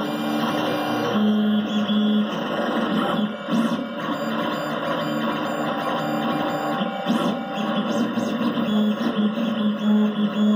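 Dual-extruder FDM 3D printer at work: its stepper motors hum in held tones that jump in pitch every second or so as the print head changes moves, over a steady hiss.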